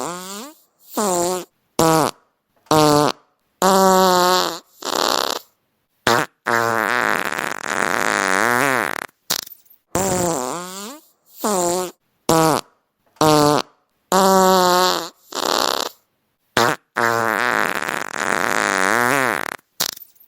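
A string of fart sound effects: about fifteen separate farts with silent gaps between them, some short and squeaky, others long and sputtering with a wavering pitch. The same run of farts seems to play again about halfway through.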